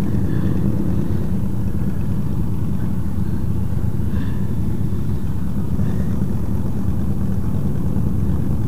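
Motorcycle engines idling, a steady low rumble.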